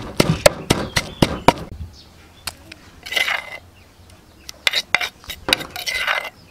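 Wooden pestle pounding garlic and chili into a paste in a wooden mortar, about four knocks a second, stopping a little under two seconds in. Then a metal spoon scrapes the paste out of the mortar, with a few light clinks.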